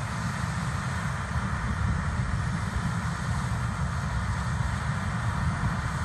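Distant John Deere S790 combine harvester working, heard as a steady low rumble with an even hiss above it.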